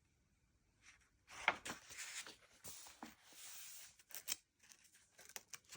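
Paper pages of a colouring magazine being turned: a soft rustle lasting about three seconds, then a few light paper flicks and taps.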